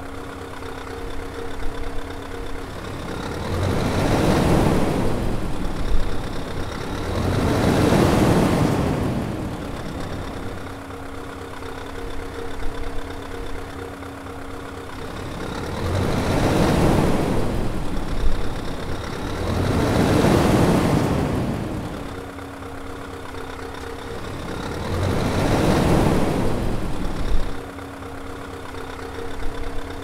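Scania 770 hp 16-litre V8 diesel engine idling with a steady hum. It is revved five times, each rev swelling up and dying back down over two to three seconds.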